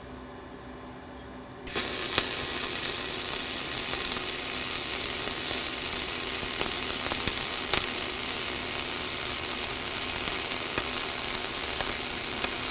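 Flux-core arc welding on a vertical joint: after a low steady hum, the arc strikes a little under two seconds in and then crackles and sizzles steadily, with scattered sharp pops, as a cap bead is run.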